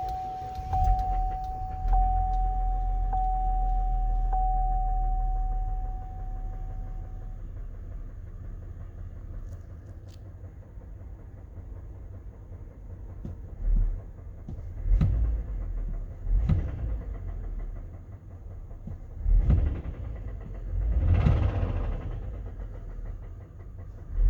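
GM 3.6 L LLT V6 in a Buick Enclave running with an engine knock the owner calls bad, revved briefly several times in the second half. For the first seven seconds a steady beeping chime repeats about once a second over the engine.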